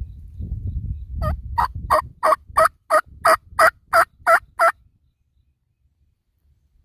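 A series of about eleven turkey yelps, evenly spaced at roughly three a second and stopping after a few seconds. A low rumble comes before them.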